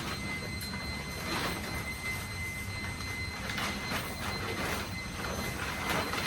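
Carport fabric side panel rustling and crinkling as it is handled and hooked on, in several short bursts, over a steady low rumble and a faint steady high whine.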